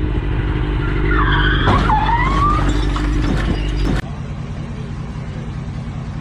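Motorcycle engine running under squealing tyres from about one to three seconds in, with a sharp crash impact in the middle of the skid. The sound cuts off abruptly about four seconds in to a steady low hum.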